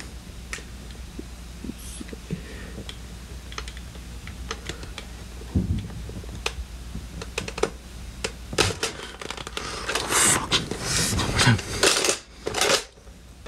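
Scattered sharp plastic clicks from a toy foam-dart blaster being handled and aimed. About nine seconds in they thicken into a run of louder clattering and rustling that stops shortly before the end.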